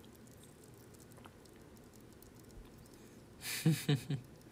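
Quiet room tone, then near the end a man's short breathy laugh in three quick pulses.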